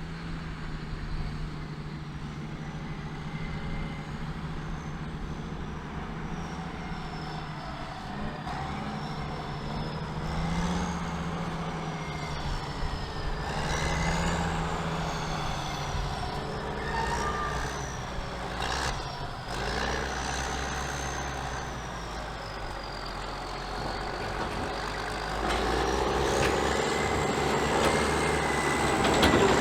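Diesel engines of a Caterpillar 627G twin-engine scraper running under a steady drone, with a thin high whine that rises and falls repeatedly. The sound grows louder over the last few seconds.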